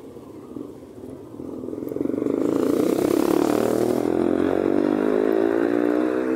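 A motor vehicle's engine drawing near and passing close by: it grows loud about two seconds in, holds a steady engine note for several seconds, and starts to fade near the end.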